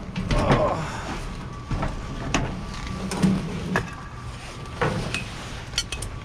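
A large canvas umbrella being hauled out of a steel dumpster: the fabric rustles and the pole knocks and scrapes against the metal in a few sharp clanks.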